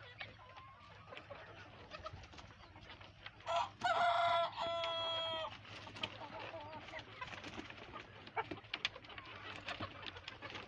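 A flock of desi chickens clucking, with one rooster crowing loudly for about two seconds starting about three and a half seconds in: a rising opening, then a long held note.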